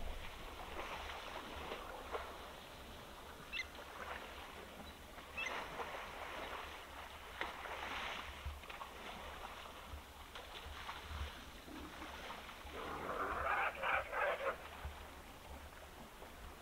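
Quiet waterhole ambience with African elephants moving about in mud and water, two short bird chirps early on, and a louder rough burst of noise lasting about two seconds near the end.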